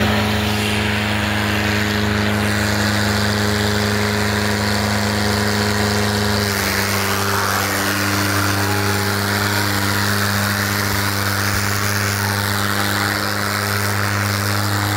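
Tractor diesel engines running hard at full throttle while pulling against each other in a tug-of-war: a steady, loud drone whose pitch shifts slightly about six and a half seconds in.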